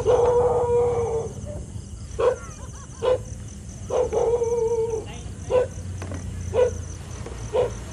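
A dog giving two long drawn-out cries, one at the start and one about four seconds in, with short barks about once a second between and after them. Crickets chirp steadily behind.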